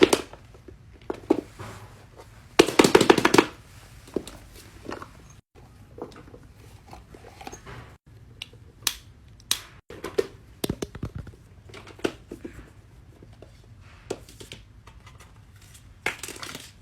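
Plastic fidget toys being handled: scattered clicks and taps, with a louder, denser burst of clattering about three seconds in.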